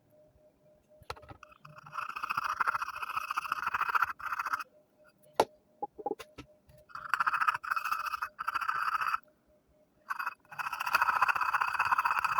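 Fingernails scraping sticky label residue off a Zippo lighter's case, in three spells of about two seconds each, with a single sharp click between the first and second.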